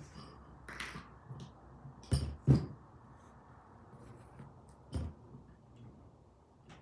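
Bench vise parts being handled on a workbench: a short scrape, then two sharp knocks in quick succession and a third a few seconds later, as pieces are set down and fitted during reassembly.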